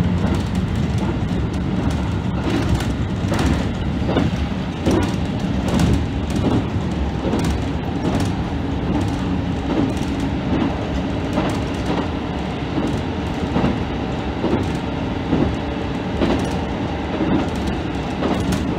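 JR Central KiHa 75 diesel railcar running along the line, heard from the front of the train: a steady running rumble with the wheels clicking over rail joints and points at irregular intervals.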